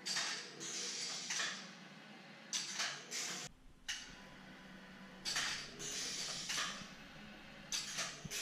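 M&R Renegade 4056 flat-stock screen printer cycling: repeated short hisses of air from its pneumatic actuators as the screen frame and print carriage move, with mechanical sliding sounds. A low hum sets in about halfway through.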